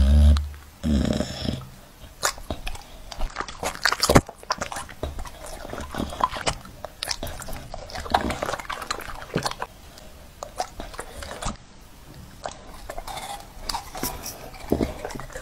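Bully-breed dog eating soft fruit fed from a fork: wet chewing and lip-smacking in irregular clicks and smacks. There are louder low sounds in the first second and a half.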